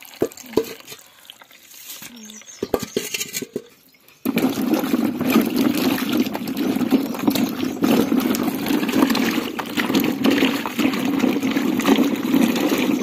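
A few light knocks, then, about four seconds in, small potatoes being scrubbed by hand in a plastic basin of water, with sloshing water and the potatoes rubbing and knocking together.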